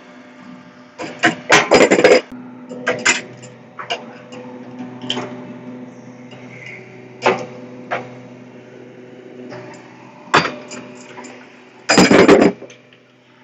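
Irregular metallic clanks and knocks of an adjustable wrench, brass valve fittings and a refrigeration gauge manifold being handled, loudest in a dense rattle near the end, over a steady machine hum.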